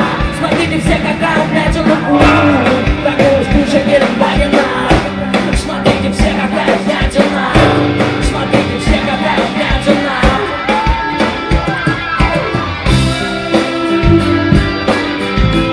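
Live rock band playing through a stage PA: electric guitar over bass and drums with a steady beat, with some singing.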